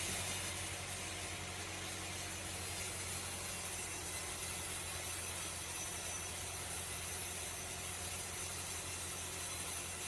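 Steady machinery noise: a constant low hum under an even hiss, with no separate cuts or knocks.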